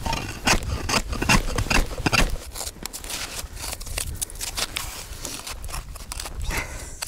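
An ice chisel chopping into a fishing hole that has frozen over, two or three sharp blows a second. About two seconds in the chopping stops, and a metal ice scoop scrapes and clinks as the broken ice chips are scooped out of the hole.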